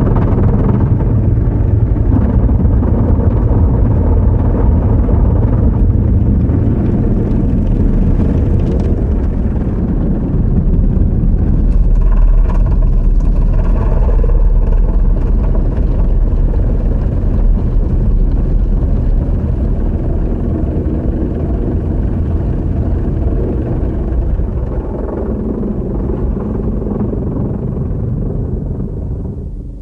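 Car wash heard from inside the vehicle's cabin: a loud, steady low rumble of wash noise, fading out near the end.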